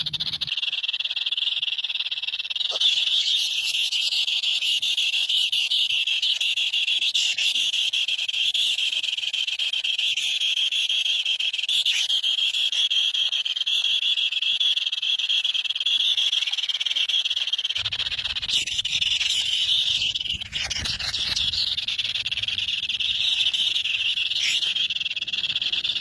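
A dense, unbroken chorus of calling animals, a continuous shrill trill. A low rumble joins it about two-thirds of the way through.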